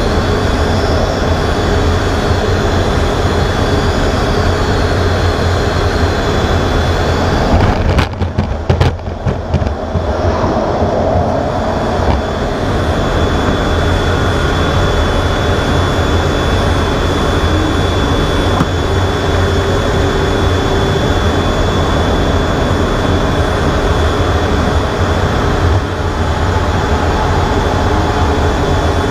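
Jet fighter's engines running, heard from inside the cockpit as a steady loud noise with a high whine over it. About eight seconds in, a burst of sharp knocks and clatter marks the arrested landing on the carrier deck, then the engines run on steadily as the jet rolls out and taxis.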